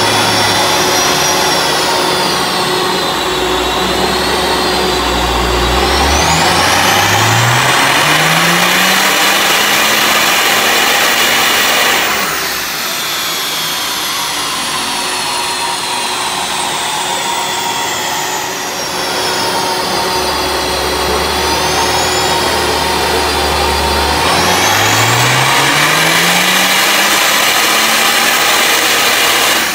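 Modified car engine on a rolling-road dyno making two full-throttle pulls. Each one revs steadily up for about six seconds and then cuts off sharply at the top, with the engine dropping back to a lower, steady run between them.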